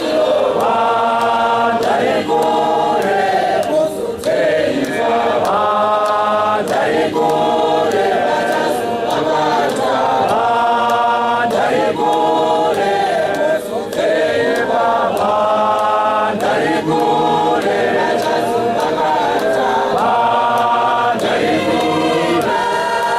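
Church choir, mostly women's voices, singing a Shona hymn a cappella in phrases, with short breaks between phrases about 4 and 14 seconds in.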